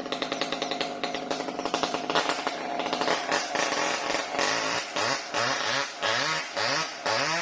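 Chainsaw cutting mahogany, its engine running at high revs. About halfway through, the engine speed starts to rise and dip in a regular rhythm, roughly one and a half surges a second.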